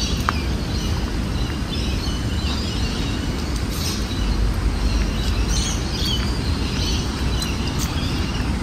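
Birds chirping on and off over a steady low rumble of city background noise.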